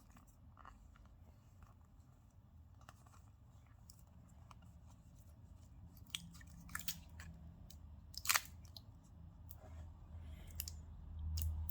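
Scattered small clicks and taps of phone parts being handled, with one sharper click about eight seconds in, over a faint low hum.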